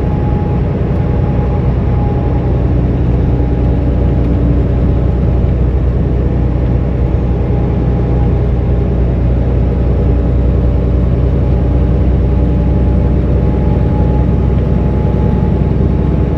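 Peterbilt 579 semi truck cruising at highway speed: a steady diesel engine drone mixed with road noise, unchanging throughout.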